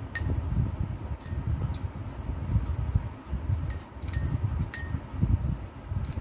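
Close-miked chewing and eating, with several short ringing clinks of a utensil against a dish.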